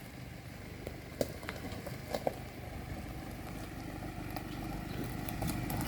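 Low, steady rumble of a vehicle engine running, growing slowly louder, with a few light clicks and taps in the first couple of seconds.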